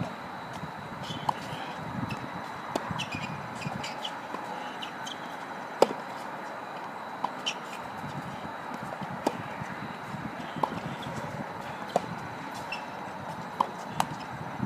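Tennis ball hit back and forth in a rally: sharp pops of racket strikes and ball bounces on a hard court, one every second or two, the loudest about six seconds in.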